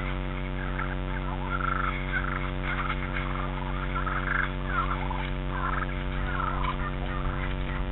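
A flock of fowl calling in many short, overlapping calls, over a steady electrical hum.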